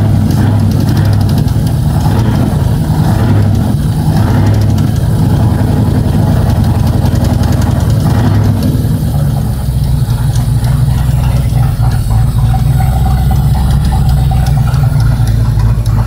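A 460 cubic-inch big-block Ford V8 running at idle. It sounds busier and more ragged for the first half, then settles steadier and lower from about nine seconds in. The engine has an intermittent lifter knock on cylinder number 4, which the owner suspects is a collapsed lifter.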